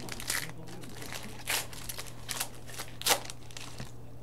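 A card pack's wrapper crinkling in four or five short bursts as it is handled and opened.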